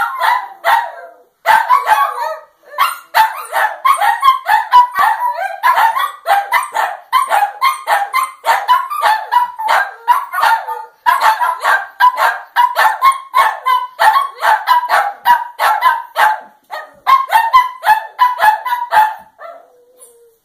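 Two small shih tzu-type dogs barking together, fast and continuous at about three barks a second, with short gaps near the start. The barking stops about a second before the end.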